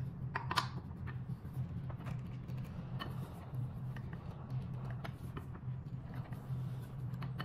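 Scattered light clicks and ticks from a screwdriver turning the threaded rod of a puller tool that presses the front fork shaft out of an electric scooter's rocker arm, the sharpest about half a second in. A steady low hum runs underneath.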